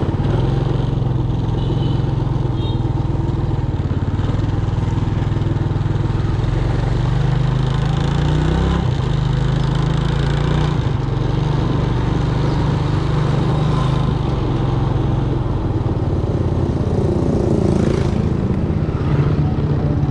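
Small engine running steadily under way, with a brief dip in engine speed about nine seconds in.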